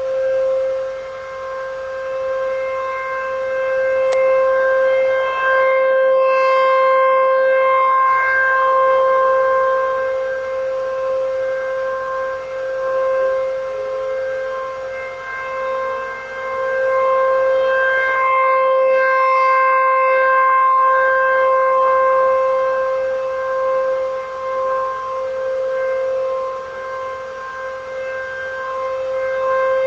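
Outdoor tornado warning siren sounding a steady, unwavering tone during a routine test. Its loudness swells and fades about every twelve seconds.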